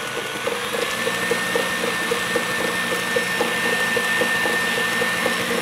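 Electric mixer running steadily in a bowl of cake batter, beating brown sugar, butter, eggs and milk together. A low hum and light, regular ticking, with a steady high whine coming in about a second in.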